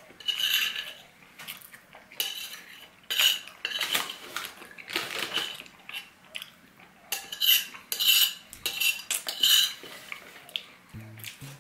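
Metal spoon scraping across a ceramic dinner plate, a string of short scrapes at uneven intervals as the last crumbs of pie and melted ice cream are gathered up.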